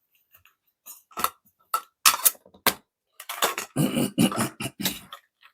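Small metal objects being handled: sharp clicks and light clinks, then a denser run of rattling and scraping about three seconds in, as airgun pellets and their tin are handled.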